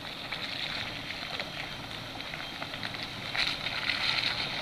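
Pickup truck driving slowly through a shallow stream crossing, its engine running low under the wash of water around the tyres. The splashing grows louder about three seconds in.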